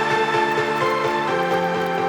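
Background music: sustained chords shifting step by step.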